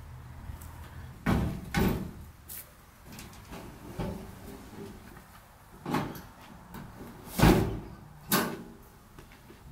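Pickup truck camper shell and tailgate being handled and fitted: a string of about six loud knocks and thumps, the loudest about seven and a half seconds in.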